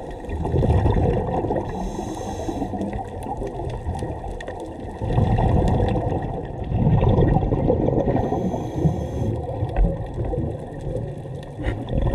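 Scuba diver breathing through a regulator underwater, heard from a camera housing: surges of gurgling exhaled bubbles, with two short hissing inhalations.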